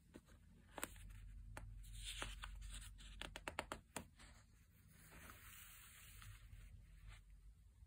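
Paper pages of a printed booklet being turned by hand: a quick run of faint crackles and flicks as the page is lifted and turned, then a softer rustle as it settles.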